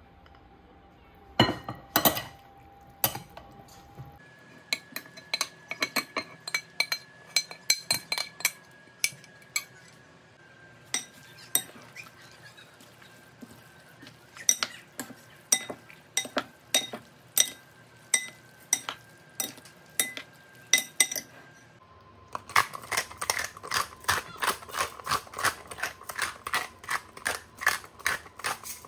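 Serving utensils scraping and clinking against a glass mixing bowl as spaghetti squash is tossed with baked feta and tomatoes, in sharp irregular clinks. About 22 seconds in, a pepper mill is twisted, grinding with a fast, even run of clicks.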